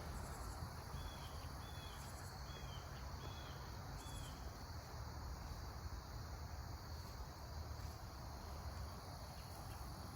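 Faint insect chirping, cricket-like: short repeated chirps about twice a second that fade out after a few seconds, over a quiet steady background.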